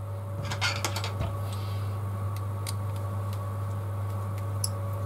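Small sharp clicks and taps of tiny parts being handled, a quick cluster in the first second then a few scattered ticks, as the Mavic Pro gimbal's last ribbon-cable connector is worked loose. A steady electrical hum runs underneath.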